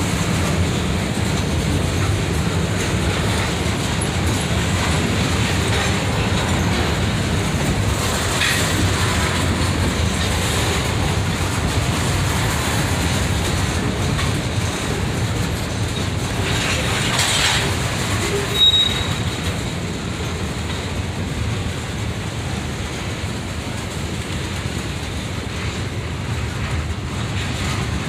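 Freight cars (covered hoppers, tank cars and boxcars) rolling past, a steady rumble of steel wheels on rail. A brief high wheel squeal sounds about two-thirds of the way through.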